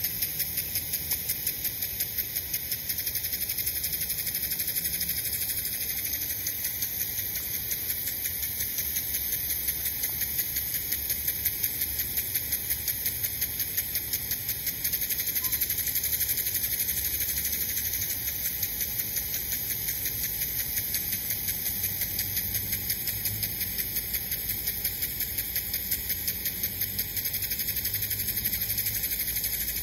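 Steady high-pitched insect chorus, pulsing quickly and evenly.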